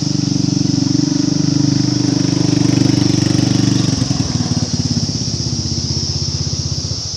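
2015 Holden Colorado's 2.8 litre four-cylinder turbo diesel idling with a steady low pulsing beat, which becomes more distinct about four seconds in.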